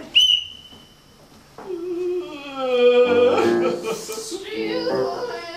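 A whistle blown once, a high steady tone held for about a second, then a voice singing a long sliding note, joined about three seconds in by fuller music with singing.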